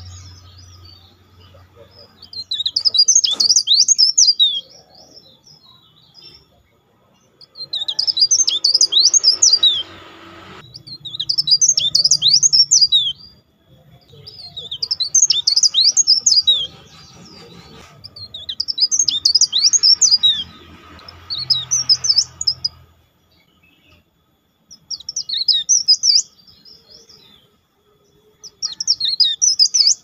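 A caged tralis songbird singing: bursts of rapid, high chirping notes, each burst lasting two to three seconds and repeated every few seconds with short pauses between.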